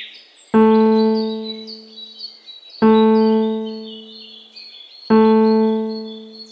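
A single keyboard note, piano-like, struck three times at a slow even pace, each one ringing and fading before the next, with birds chirping underneath.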